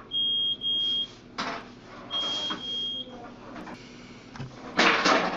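Cooking timer beeping to mark the end of five minutes of steaming: two pairs of high, steady beeps about two seconds apart. A louder burst of noise comes near the end.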